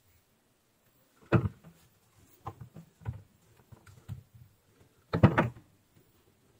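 Handling knocks as a USB-C charger cable end held in pliers is pressed and moved by hand: a sharp knock about a second in, a few lighter taps, then a louder cluster of knocks near the end.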